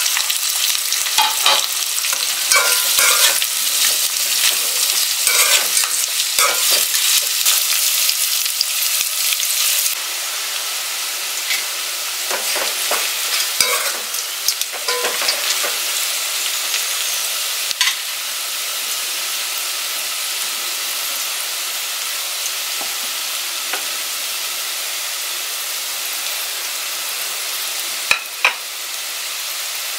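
Sliced onions and green chillies sizzling in hot oil in an aluminium pot, stirred with a metal slotted spatula that scrapes and clinks against the pot. About ten seconds in the sound drops abruptly to a quieter, steady sizzle with occasional clinks. Two sharp knocks come near the end.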